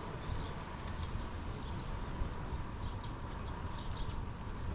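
Small birds chirping: many short, high chirps scattered throughout, over a steady low background noise.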